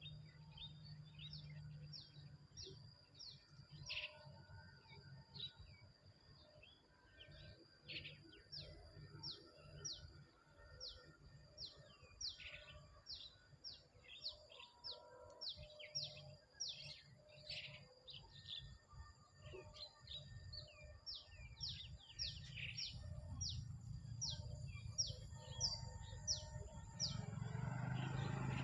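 A bird calling over and over in short high notes that each drop in pitch, about two a second, with a low rumble underneath that grows louder near the end.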